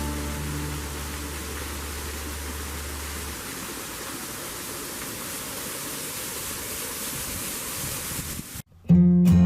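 Steady rush of water falling over a garden waterfall, an even hiss. A low hum from the fading music lasts about three seconds in. The water sound cuts off abruptly near the end, and acoustic guitar strumming starts just after.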